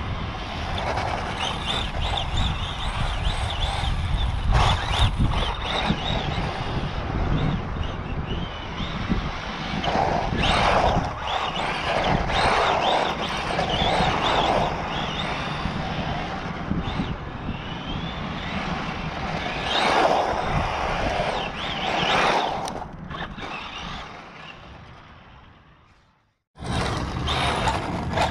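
Tamiya TT02 1/10-scale electric radio-controlled car driving on coarse asphalt. Its motor and gears whine, rising and falling in pitch as it speeds up and slows down, over the rumble of the tyres. Near the end the sound fades away, cuts out briefly, then comes back suddenly.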